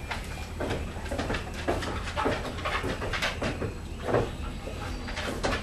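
Footsteps of a person and a dog on wooden deck boards: a string of irregular knocks and scuffs, a few each second.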